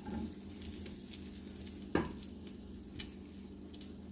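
Egg-and-nopal patties frying in oil in a nonstick pan, sizzling steadily with scattered crackles. A spatula knocks against the pan once about two seconds in.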